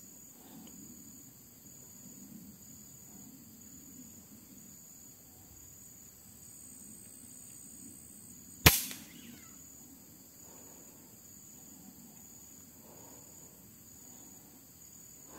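A single shot from an FX Impact M3 PCP air rifle a little over halfway through: a sharp crack with a short decaying tail. Pulsing insect chirping carries on steadily in the background.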